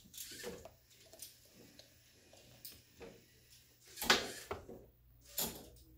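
Scattered light clicks of LEGO robot parts being handled, with two louder sharp plastic clacks about four seconds and five and a half seconds in.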